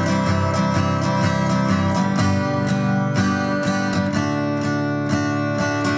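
Strummed acoustic guitar playing steadily in a song's instrumental gap between sung lines.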